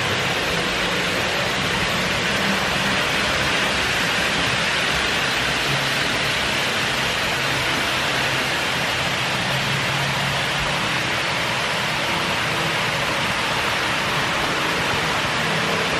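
HO- and N-gauge model trains running together around a layout: a steady rushing noise of wheels on rails and motors, with no breaks.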